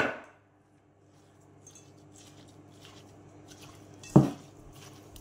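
A hand squeezing and mixing pounded banana-stem pith in a stainless steel bowl: faint wet squishing, with two sharp clanks against the bowl, one at the start and a louder one about four seconds in.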